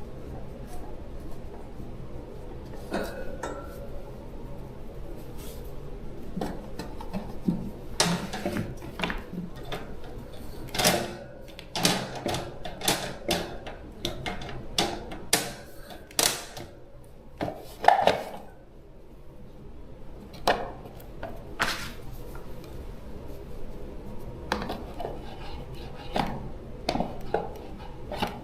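Irregular clinks, taps and knocks of small metal parts and hand tools being handled and set down during a repair, some sharper and louder than others.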